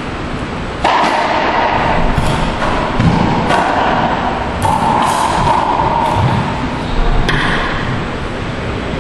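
Racquetball rally: about seven sharp cracks of the ball off racquets and court walls, each one echoing in the enclosed court.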